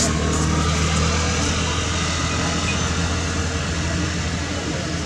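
Steady low hum of a running engine, with a constant background hiss; a single sharp click at the start.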